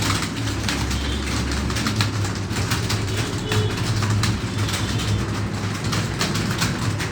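Many computer keyboards clattering at once as a roomful of people type fast: a dense, unbroken patter of key clicks over a steady low hum.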